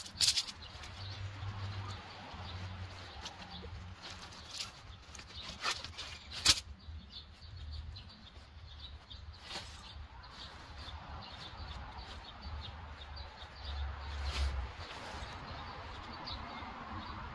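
Tent pole sections clicking and clattering as they are handled, several sharp clicks in the first seven seconds, then nylon tent fabric rustling and flapping as the tent is spread out on the grass near the end.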